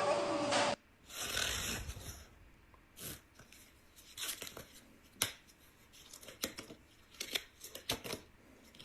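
Playing cards being flicked and handled in card flourishes: an irregular run of sharp snaps and clicks, after a loud noisy sound cuts off under a second in and a short rustling rush follows.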